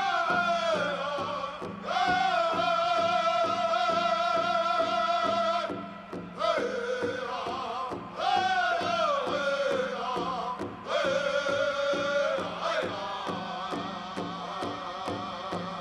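Pow wow drum group singing: high-pitched male voices hold long notes and slide down at the ends of phrases over a steady, even drumbeat on a shared big drum.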